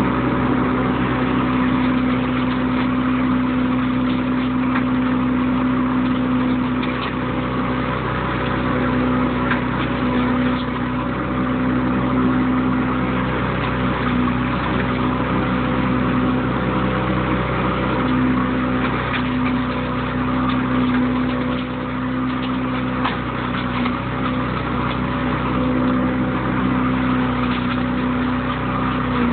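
Engine running steadily at an even, constant speed.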